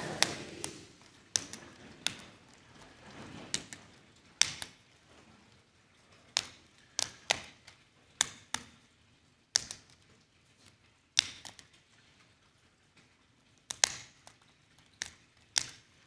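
Sharp, irregular snaps and clicks, roughly one a second, each with a short ring after it. They come from altar-bread hosts being broken by hand over a paten and bowl during the fraction rite.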